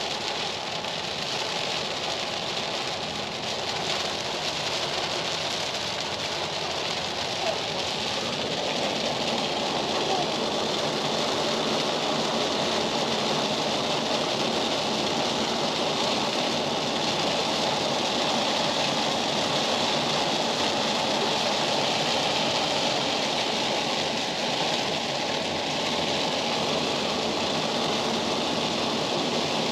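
Steady rushing noise of a vehicle on the move, tyres and engine blending into an even hiss, a little louder from about ten seconds in.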